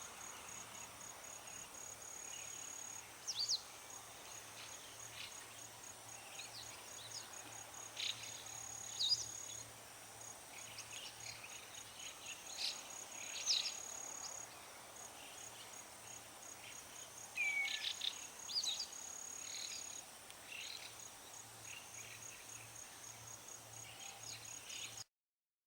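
Common redshank giving short, sharp whistled calls at irregular intervals, several of them sliding down in pitch, over a steady high pulsing trill of crickets. The sound cuts off suddenly near the end.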